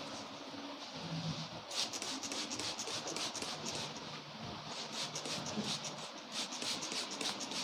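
A barber's hands rubbing and scratching over a customer's hair and scalp in a head massage. The sound is a soft rasp that turns into a rapid, irregular run of scratchy strokes about two seconds in.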